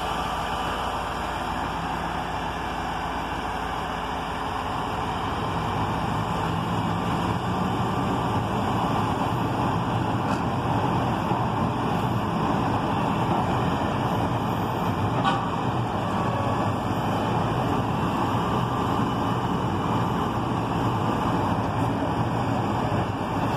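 Diesel engine of a Mack grapple truck running steadily to power its hydraulic knuckle-boom log loader. The engine grows louder about six seconds in as the boom and grapple are worked.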